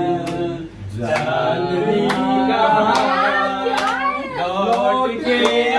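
A Hindi song being sung, with long held notes that bend in pitch, and a few sharp clicks in between.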